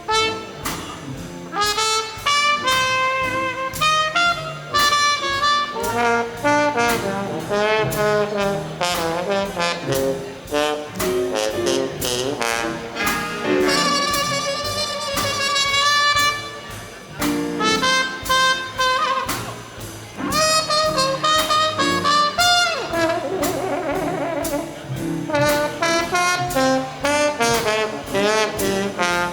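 Live big band playing swing jazz, with a trombone and a trumpet out in front over the band's horns, bass and drums.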